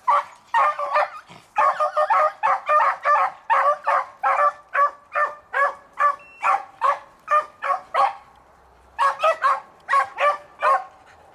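Beagles baying on a rabbit's scent trail: a rapid run of short, ringing calls, two or three a second, that breaks off about eight seconds in, followed by a short burst of about five more calls near the end.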